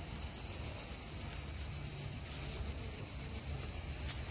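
A chorus of insects making a steady, high-pitched, unbroken buzz, with a low background rumble under it.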